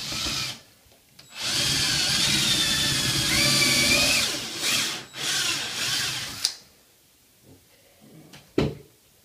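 Cordless drill pre-drilling a pilot hole through a wooden handrail into the newel post so the wood won't split: a short burst, then about five seconds of drilling with the motor's whine rising in pitch and dipping briefly midway, stopping suddenly. A single sharp knock near the end.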